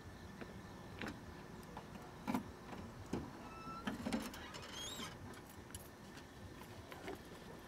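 A car trunk being opened and something handled inside it: a few scattered clicks and knocks, with a couple of short, faint high squeaks about halfway through.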